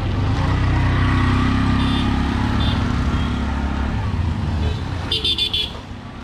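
Engine of a three-wheeled CNG auto-rickshaw passing close and pulling away, loudest about a second in and fading over the next few seconds. A brief high ringing comes about five seconds in.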